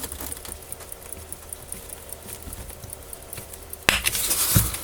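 Faint scratchy clicks and patter of a tool working at the inner dust cover of a vintage pocket watch, with a louder, short scrape about four seconds in that ends in a small knock.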